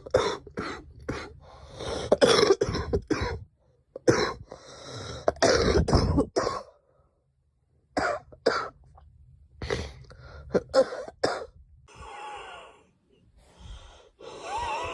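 A girl coughing in several fits of rapid, short coughs separated by brief pauses. Near the end the coughs give way to softer, longer breaths.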